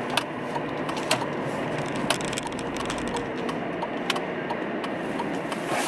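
Inside a car cabin: a steady hum of engine and road noise, with light clicks and ticks at irregular intervals.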